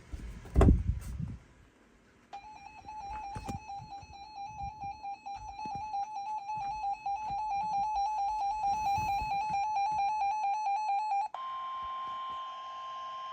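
A couple of thumps, then an emergency alert tone from a weather radio: a warbling high tone held for about nine seconds, switching to a steadier, slightly higher tone near the end.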